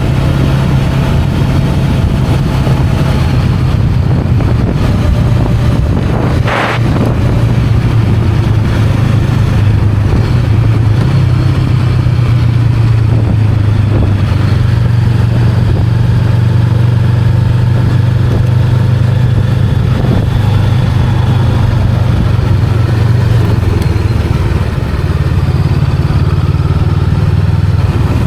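Honda Rebel 500's parallel-twin engine running steadily at a cruise, with a brief sharp click about six seconds in.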